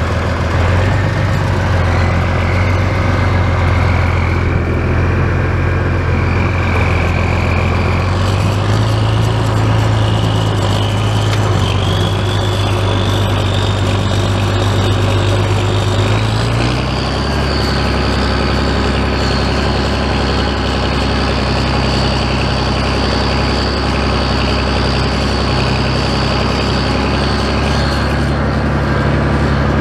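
Oliver farm tractor's engine running steadily while driving, its note shifting about eight seconds in and again about seventeen seconds in. A thin high whine rises in pitch over the first half and then holds steady.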